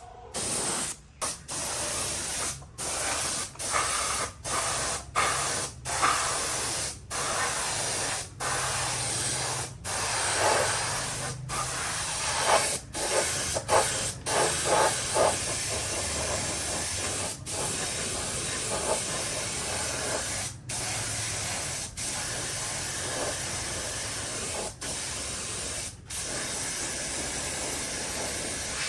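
Compressed-air spray gun hissing steadily, cut off for a moment again and again as the trigger is let go, many times in the first half and less often later.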